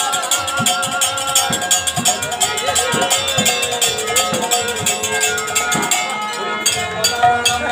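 Harinam sankirtan music: brass kartal hand cymbals struck in a rapid, steady rhythm over held melodic tones, with occasional low drum strokes.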